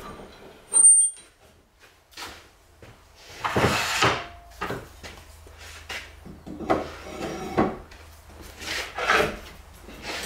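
Wooden board scraping and knocking against the workbench as it is pushed and shifted in its tight slot between the bench tops, in several separate bursts of wood rubbing on wood.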